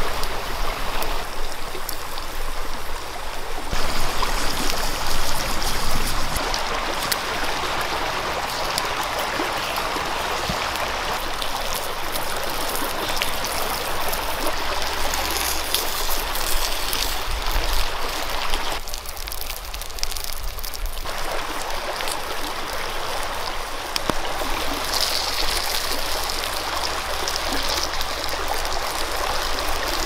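Stream water running, a steady rushing and trickling noise.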